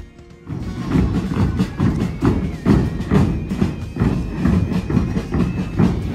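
Large bass drums carried and played by a walking street procession, beating a loud, driving rhythm that starts about half a second in.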